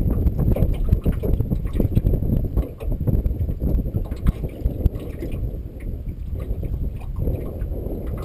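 Water slapping against a small fishing boat's hull, with many irregular small knocks over a low rumble of wind on the microphone.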